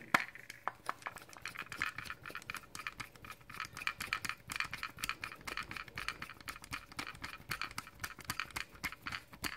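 A hand screwdriver turning a small screw into the plastic housing of a Zircon StudSensor Pro SL stud finder: a faint, fast run of small clicks and scrapes as the screw is driven in.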